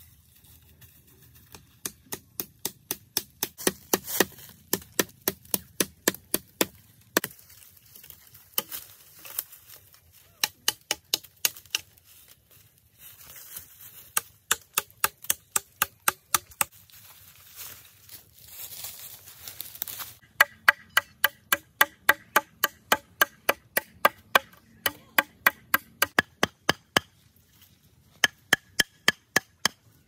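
Rapid, even chopping with a knife on a wooden board, in runs of about three to four strikes a second broken by short pauses.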